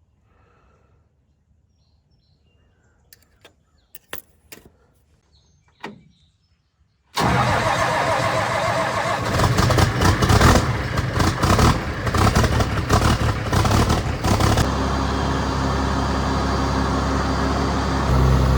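A few light clicks, then about seven seconds in the John Deere 4430's diesel engine starts and runs rough and uneven, settling into a steady idle near the end.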